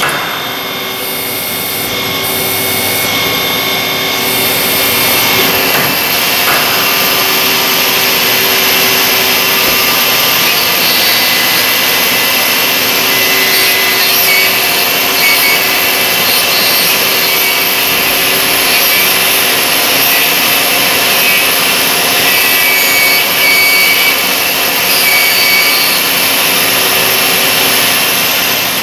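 Miyano ANX-42SYY CNC multi-axis lathe machining a brass part: spindle and live milling tool running with a steady cutting hiss and several held whining tones.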